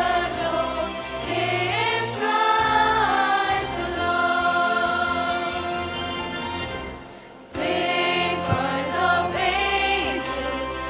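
Mixed choir of men and women singing a Christmas carol in harmony, with sustained notes. The voices break off briefly about two-thirds of the way through, then come back in together.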